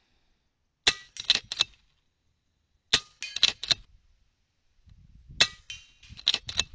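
Three PCP air-rifle shots about two seconds apart. Each is followed at once by a quick clatter of pellet strike and metal knock-down animal-silhouette targets falling.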